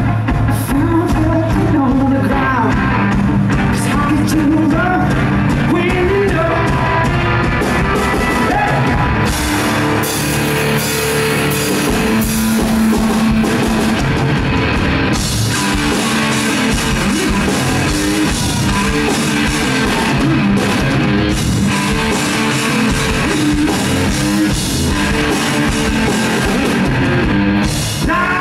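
Live rock band playing loud: electric guitar and drum kit, with a man singing in the first several seconds. Cymbals crash and wash for several seconds near the middle.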